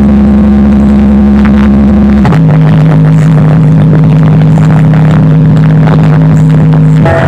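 Large sound system's new speaker boxes playing a very loud held bass tone that steps down to a lower held pitch about two seconds in.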